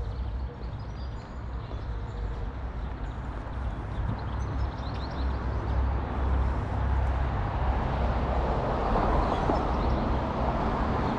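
A car approaching and passing on the street, its tyre and engine noise building over several seconds to loudest near the end, over a steady low rumble. A few faint bird chirps in the first half.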